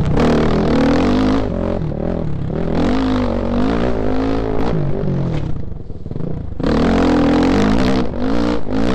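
Honda off-road motorcycle engine ridden hard, its pitch rising and falling as the throttle opens and closes. About six seconds in the revs drop off briefly, then it climbs back up with quick up-and-down swings.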